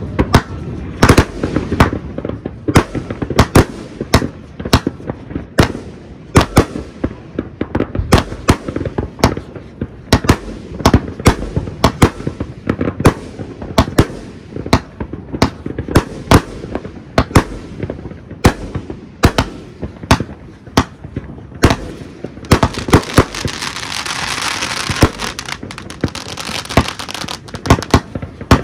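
Fireworks going off: sharp bangs, several a second at irregular spacing. A dense crackling hiss joins in during the last quarter.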